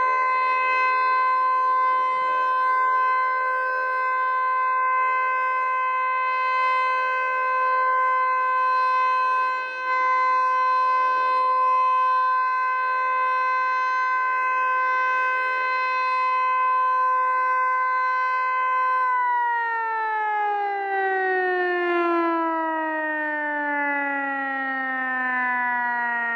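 Federal Signal Eclipse 9 outdoor warning siren sounding a steady full-alert tone during a test. About 19 seconds in it begins to wind down, its pitch falling steadily and smoothly as it shuts off.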